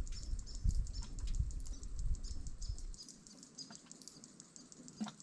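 Rapid, even, high-pitched ticking, several ticks a second, with a low rumble on the microphone for the first three seconds.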